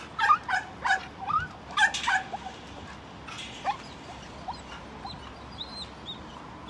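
Several dogs barking and yelping in a quick, excited run of about eight short calls over the first two and a half seconds, then a single fainter yelp a little later.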